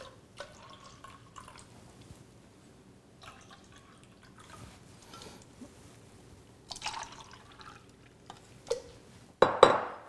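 Water poured in short trickles from a small cup into small cups of water, with light clinks and taps as the cups are handled. The loudest is a brief splash and knock near the end.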